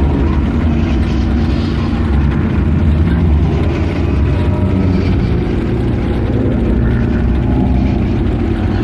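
A steady, loud, deep rumble with layered droning tones above it: a designed "hell" sound-effect ambience.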